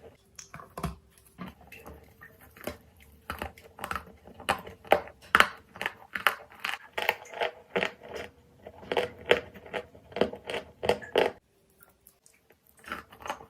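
Dry Turkestan edible clay being bitten and chewed: a quick, irregular run of sharp crunches. The crunching breaks off for about a second near the end, then starts again.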